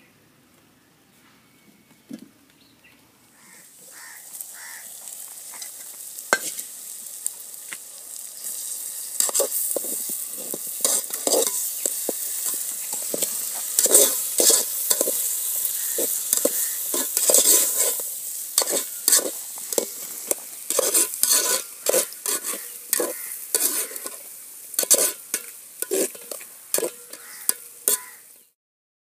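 Okra (lady finger) curry sizzling in a metal pot over a wood fire, with a metal spoon stirring and scraping against the pot in many quick repeated strokes. The sizzling starts a few seconds in and grows louder, the spoon strokes coming in busy runs.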